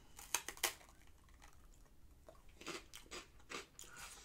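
Biting into and chewing a very thin, brittle senbei rice cracker: a cluster of crisp crunches in the first second, then softer chewing crunches.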